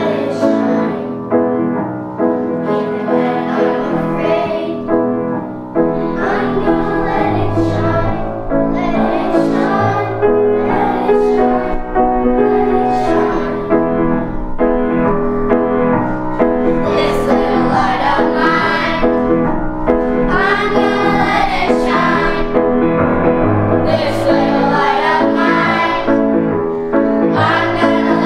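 Children's choir singing a song together, with piano accompaniment.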